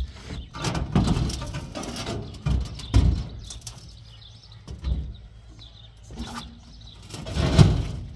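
Heavy precast concrete rings being shifted on a truck bed, knocking and scraping against each other and the bed in a series of dull thuds, the loudest near the end.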